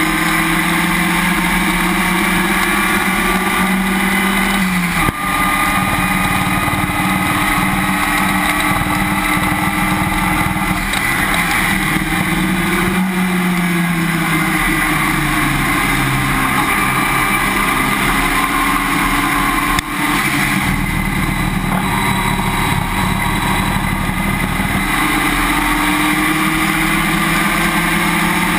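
Race car running at track speed, heard from a camera mounted under the car beside the rear wheel: engine note mixed with wind and road noise, its pitch rising and falling with the revs, with two brief breaks about five seconds in and just before twenty seconds, like gear changes.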